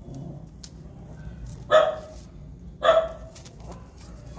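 Ten-day-old puppy yelping twice, two short sharp cries about a second apart, in pain as its maggot-infested wounds are wiped.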